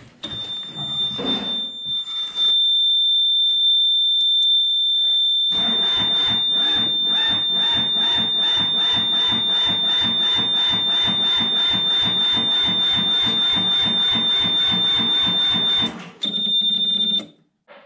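Yanmar mini-excavator's diesel engine being cranked by its starter motor. It turns over with an even rapid chugging for about ten seconds without catching, then stops and cranks again briefly. A steady high-pitched warning buzzer sounds throughout. The cranking is weak and slow, the sign of a failing starter motor, which the owner takes to be dead.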